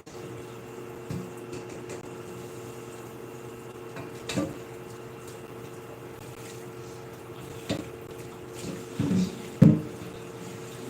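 Water running steadily over a steady hum, with a few short knocks and clatters; the loudest comes near the end.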